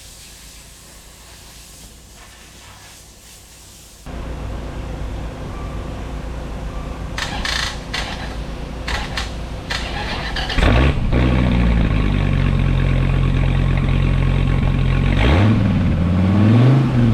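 Dodge Viper V10 cold start: after a few quiet seconds the car is switched on, the engine cranks and catches about ten seconds in, then settles into a loud, steady fast idle, with a dip and rise in pitch near the end.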